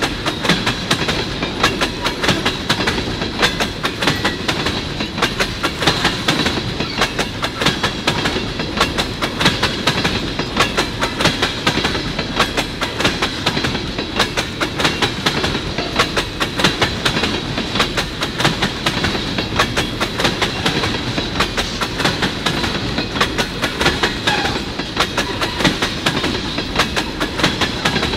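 A freight train of empty ethanol tank cars rolling past close by: a steady rumble of steel wheels on rail with a continuous, rapid clickety-clack of wheels over rail joints, and a steady high ring above it.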